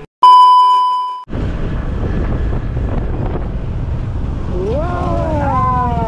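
A single loud, bright bell-like ding that rings and fades for about a second before cutting off sharply, followed by a steady low rumble of wind on the microphone and street traffic. A man exclaims "Wow!" near the end.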